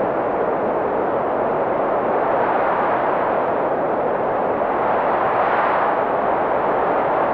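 Strong blizzard wind blowing steadily, a dense rushing noise that holds without let-up.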